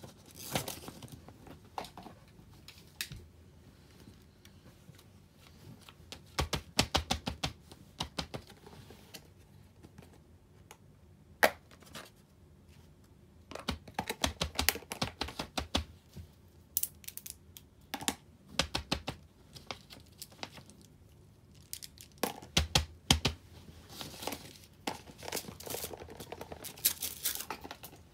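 Small plastic fidget toys, including a plastic rainbow slinky, handled and set down on paper sheets: several bursts of quick clicking and rattling from the slinky's plastic coils knocking together, with paper rustling and a single sharp click about eleven seconds in.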